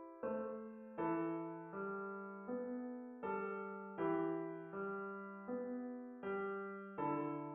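Background music: a piano playing a steady run of chords, a new chord struck about every three-quarters of a second and fading before the next.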